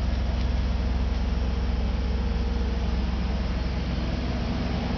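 Mobile crane's engine running steadily with a low, even hum while it holds the yacht in its slings.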